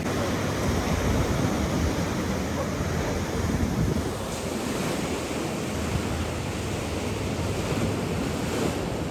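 Ocean surf breaking and washing up onto a sandy beach in a steady rush, with wind buffeting the microphone.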